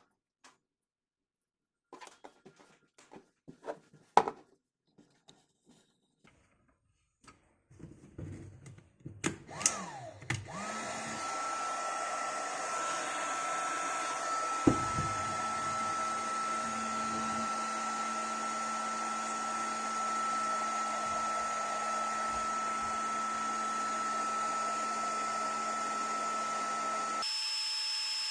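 A few handling clicks and knocks, then a hot-air blower switched on about ten seconds in and running steadily, a blowing hiss with a constant whine that changes pitch near the end; used here to shrink insulation over soldered wire joints.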